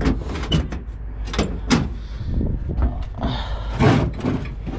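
Aluminium diamond-plate truck-bed toolbox being opened and a hand rummaging through nylon ratchet straps, their metal ratchet buckles clicking and clanking, with a louder rustle and clatter about three seconds in, over a steady low rumble.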